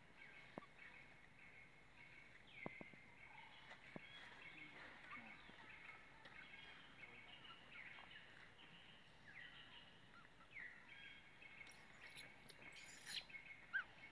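Faint background bird chirping: many short calls overlapping throughout, with a brief hiss about twelve seconds in.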